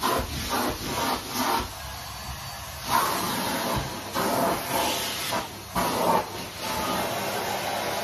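Numatic Henry cylinder vacuum cleaner running with its crevice tool sucking along the edges of carpeted stairs. The suction noise keeps changing as the nozzle is pressed into and drawn along the carpet, dulling for about a second near the start.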